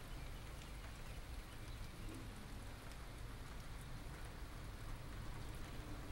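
Steady light rain falling during a thunderstorm, with scattered drops ticking close to the microphones.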